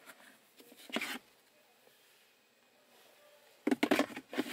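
Hard plastic interior trim being handled: a single knock about a second in, then a quick run of clicks and knocks near the end.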